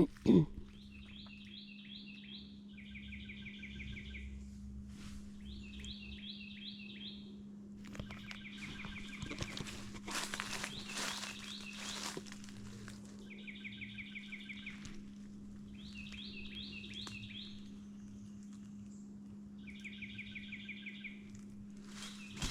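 A songbird singing short, rapid, repeated phrases every few seconds, answered in two alternating patterns, over a faint steady low hum.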